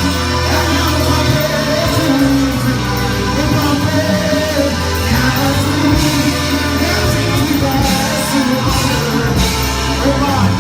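Loud gospel music: a voice singing held, wavering lines over steady bass notes and a band.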